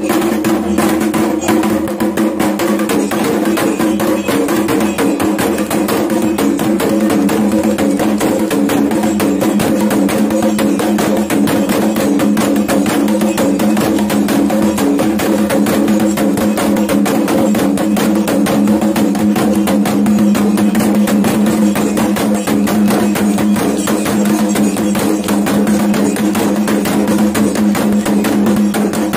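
Kendang drums, long wooden drums with hide heads hung from ropes, beaten with sticks in fast, unbroken drumming: ritual drumming for a Dayak belian healing rite.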